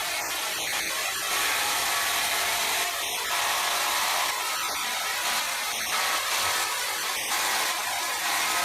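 A power saw running steadily with a high, hissing whine, dipping slightly in level every second or two.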